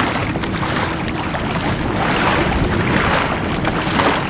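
Wind buffeting the microphone over the wash of sea water, with a faint steady hum underneath.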